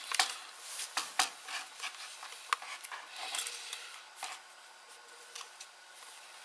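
Chainsaw recoil starter being handled: a few sharp plastic clicks and knocks in the first half, then rubbing as the rope pulley is turned in its housing to wind up the recoil spring.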